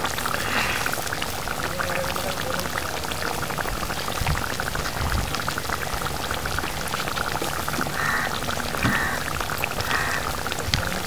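Fish pulusu simmering in a kadai: a steady bubbling made of many small crackling pops, while a ladle spoons the curry over the whole fish.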